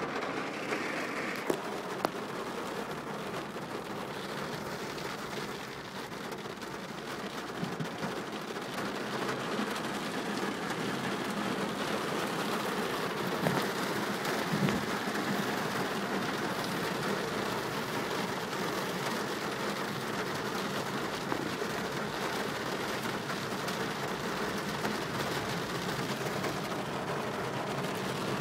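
Heavy rain pelting a car's roof and windscreen, heard from inside the moving car: a steady hiss dotted with many small ticks.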